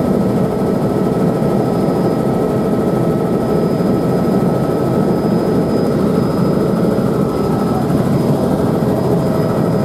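Helicopter in flight heard from inside the cabin: a steady, dense drone of rotor and engine with thin, steady high whines above it.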